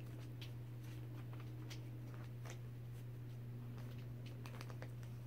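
Quiet room tone: a steady low hum with scattered faint clicks and taps.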